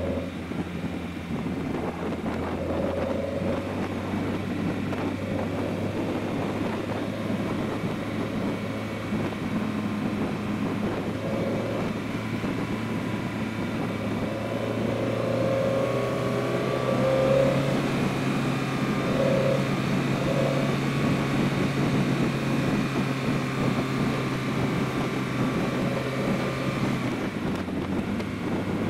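BMW E30 320is's S14 two-litre four-cylinder engine, with Schrick cams and an Evo2 muffler, pulling steadily at road speed, with tyre and wind noise. The engine note rises a little about halfway through, holds, and drops back near the end.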